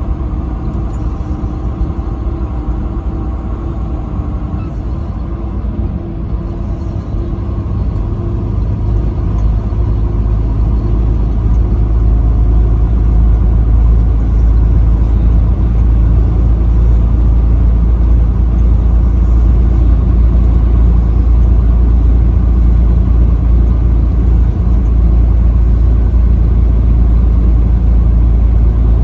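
Vehicle driving on an interstate highway: a steady low engine and road rumble that grows louder about ten seconds in, then holds steady.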